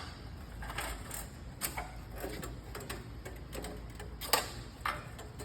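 Scattered metal clicks and clatters of a band saw blade being worked off its wheels by hand, with a sharper knock about four seconds in.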